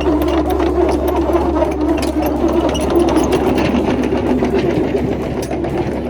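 A backhoe's diesel engine running steadily with a rapid mechanical clatter, easing off slightly near the end.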